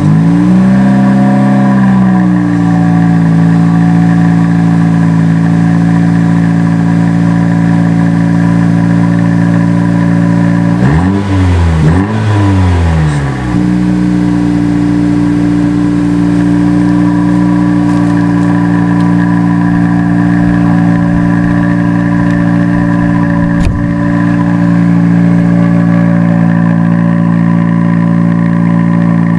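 2018 Honda Civic Si's 1.5-litre turbocharged four-cylinder running through the stock exhaust at a steady fast idle just after a cold start. Its pitch rises and falls twice in quick succession about eleven seconds in, two short revs, then settles back to the steady idle.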